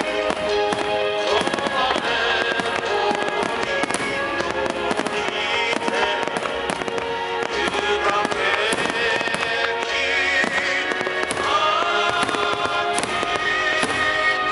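Large 10-inch warimono aerial firework shells bursting one after another with sharp bangs and crackling, over continuous music.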